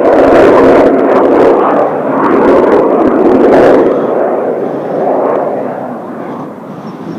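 Jet noise from Kawasaki T-4 jet trainers flying past overhead: a loud roar that fades away over the last few seconds.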